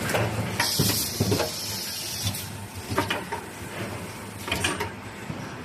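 Production-line machinery running with a steady low hum. Several sharp clicks sound over it, and a hiss like released air starts about half a second in and lasts under two seconds.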